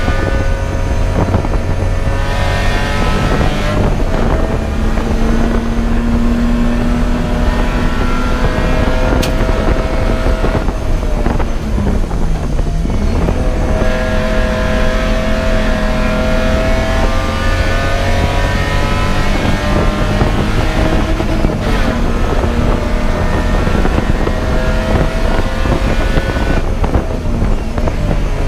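Race car engine running hard at speed under heavy wind and road noise. Its pitch wavers throughout, then dips sharply and climbs back about twelve seconds in as the car slows and picks up speed again.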